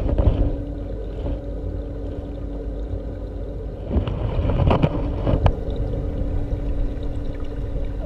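Underwater water noise: a steady low rumble with a faint steady hum, and a few sharp clicks around the middle.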